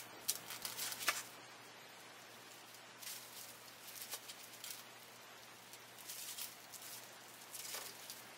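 Faint, intermittent rustling and light clicks from a circuit board being handled and turned over above plastic bubble wrap, in four short spells.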